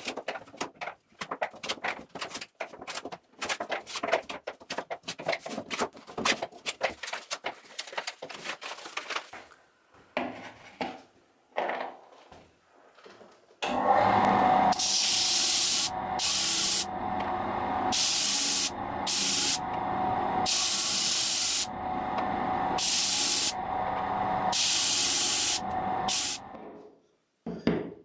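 Hard walnut shells clicking and rattling as they are gathered up by hand. About fourteen seconds in, a disc sander starts and runs steadily, with a string of short hissing bursts as shells are pressed against the sanding disc, until the motor cuts off sharply near the end.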